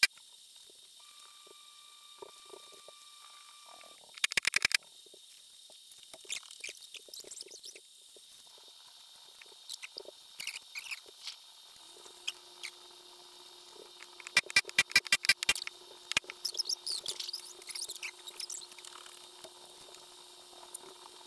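Pneumatic rivet gun hammering in short rapid bursts, back-riveting stiffeners to the aluminum rudder skins: one burst about four seconds in, then a run of several bursts around fourteen to sixteen seconds. Light clinks of parts being handled come between, and a faint steady hum starts about twelve seconds in.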